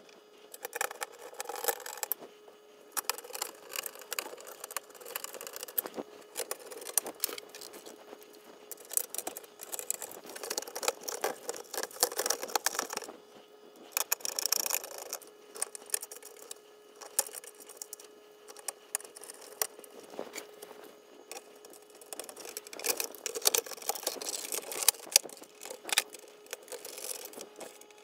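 Commodore 64C computer being reassembled by hand: irregular clicks, knocks, scrapes and rattles of its plastic case, metal shielding and keyboard being handled and screwed together, over a faint steady tone.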